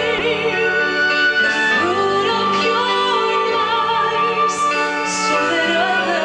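Vocal group singing a slow song, female voices prominent, holding sustained notes with vibrato.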